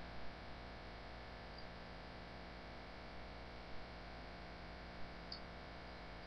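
Steady low electrical mains hum with faint hiss, broken a few times by faint short clicks.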